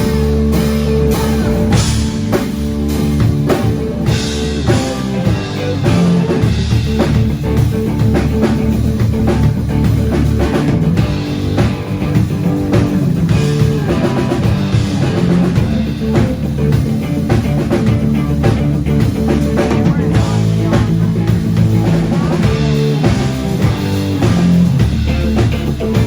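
Live rock band playing: electric guitar over bass and a drum kit, loud and continuous.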